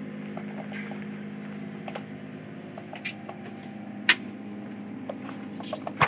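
A steady low hum with scattered light clicks and knocks of things being handled, one sharper click about four seconds in.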